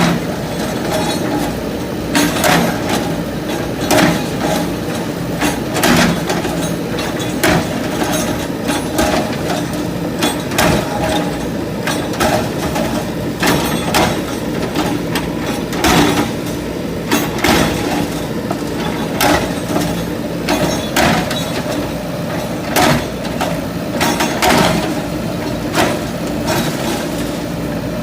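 A JCB 3DX backhoe loader's diesel engine runs steadily, with frequent irregular knocks and clatters from the machine breaking up an old building.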